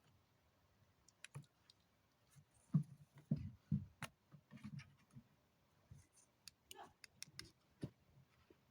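Scattered sharp clicks and a few light knocks, irregular, from small hard objects being handled, with a cluster of knocks around the middle.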